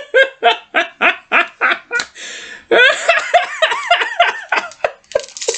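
A man laughing hard in a long run of short 'ha' bursts, about four a second, with a breathy catch about two seconds in before he laughs again, tapering off near the end.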